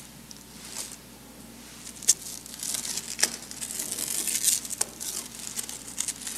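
Plastic wrap being pulled off its roll and stretched tight around a horse's hoof over a freshly glued quarter-crack patch: irregular crinkling and crackling of the film, with a few sharp clicks.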